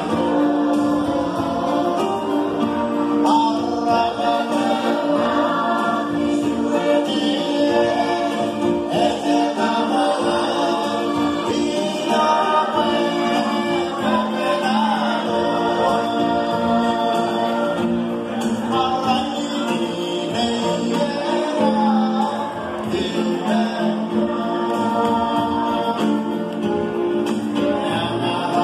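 A group of voices singing a church song together in chorus, without a break.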